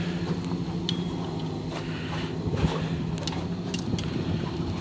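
Lake water sloshing and splashing under a wooden pier, over a steady low motor hum, with a few faint clicks.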